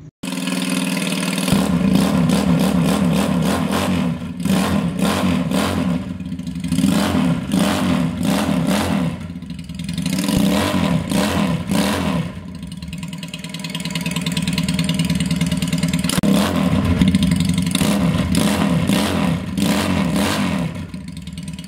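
A 350cc twin-cylinder, water-cooled, carburetted chopper engine running through its chrome dual exhausts, revved up several times and dropping back between revs.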